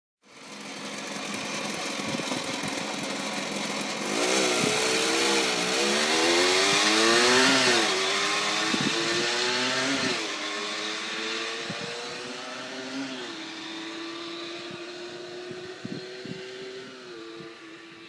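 Aprilia RS 50's 50cc two-stroke single-cylinder engine accelerating hard through the gears. The engine note climbs and drops back at each of several gear changes. It is loudest about halfway through, then fades as the bike rides away.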